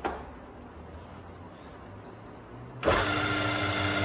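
Mill-drill spindle switched on about three seconds in and running steadily in high gear, the motor and gearhead giving a steady whine. A short click comes at the very start.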